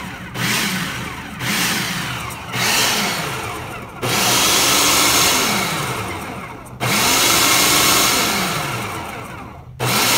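Electric food processor pulsed over and over, chopping a chunky tomato and almond pesto. Its motor speeds up and winds down with each pulse: three short pulses of about a second, then two longer runs of about three seconds, and another starting near the end.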